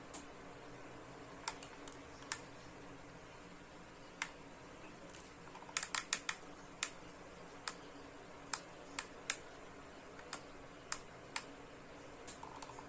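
Irregular sharp clicks and ticks from hands handling a Weller soldering gun and stiff wire strands, bunched in the middle, over a faint steady hum.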